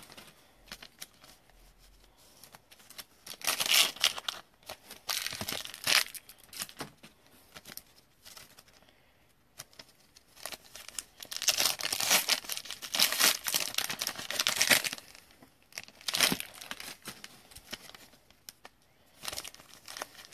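Foil wrappers of Topps trading-card packs crinkling and tearing in several bursts as the packs are handled and ripped open.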